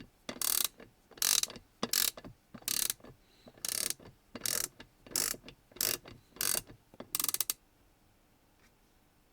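USAG 237A1/2X half-inch drive, 72-tooth round-head ratchet handle with a wedge-claw pawl, clicking as it is swung back and forth in short strokes. There are about ten quick bursts of fine ratcheting clicks, which stop a couple of seconds before the end.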